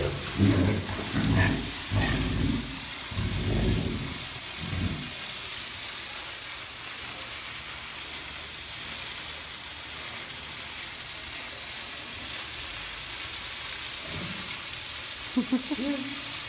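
Two tigers growling and snarling at each other as they spar: about half a dozen loud, deep growls in the first five seconds, then the growling stops.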